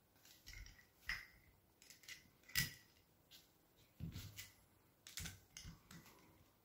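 Faint, scattered clicks and soft knocks of a metal air-rifle receiver and small parts being turned over and handled on a rubber work mat, the sharpest click about two and a half seconds in.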